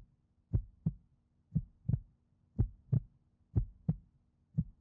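Heartbeat sound effect: a steady lub-dub, two low thumps in quick succession, repeating about once a second.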